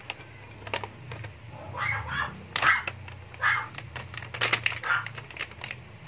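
Paper takeaway bag crinkling and rustling in irregular bursts with small clicks, as chopped roast chicken is shaken out of it onto a plate.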